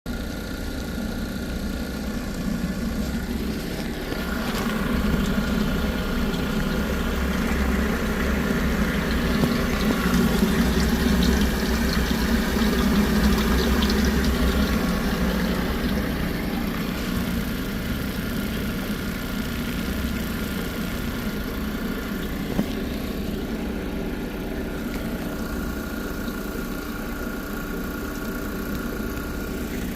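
An engine running steadily, louder for a stretch early on with added hiss, and one sharp click about three-quarters of the way through.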